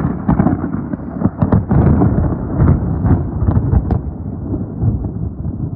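An approaching thunderstorm: loud, continuous rumbling thunder that swells and dips throughout.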